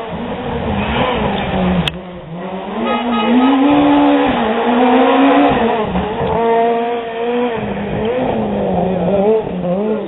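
Ford Fiesta rally car's engine revving hard as the car drives past at speed, its pitch climbing and dropping with each gear change. It is loudest around the middle as the car goes by.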